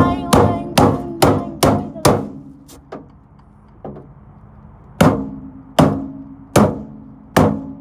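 Hard blows striking a microwave oven, each leaving a short ring from the casing: about six quick strikes in the first two seconds, a lull with a couple of light knocks, then steady strikes less than a second apart from about five seconds in.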